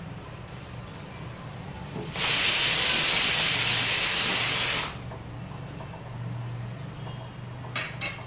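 Pressure cooker whistle going off: a loud burst of steam hissing starts about two seconds in and cuts off sharply about three seconds later, the cooker venting steam at full pressure while rice cooks inside. Two short clicks come near the end.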